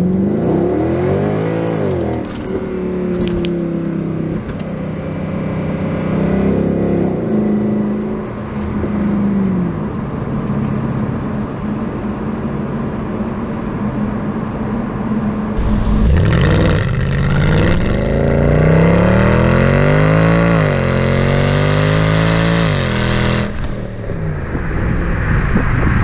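Mercedes C63 AMG (W204) 6.3-litre V8 under acceleration, revs climbing and dropping back with gear changes, then holding steadier for a while. From about sixteen seconds in it is louder, rising hard twice and falling away between.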